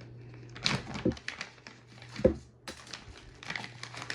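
Packaging and box contents being handled: crinkling and rustling with scattered light clicks, and one sharper knock a little over two seconds in.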